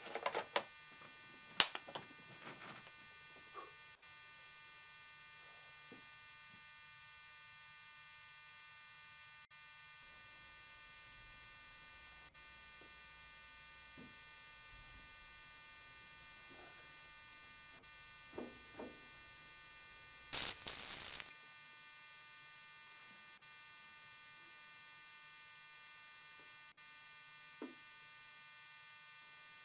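Steady electrical hum and buzz that steps up a little about a third of the way in, with a few faint taps and one brief, loud, high-pitched burst about two-thirds of the way through.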